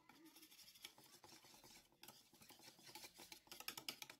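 Faint wire whisk beating thick pancake batter in a bowl: quick, light ticks and scrapes of the wires against the bowl, with a brief pause about two seconds in.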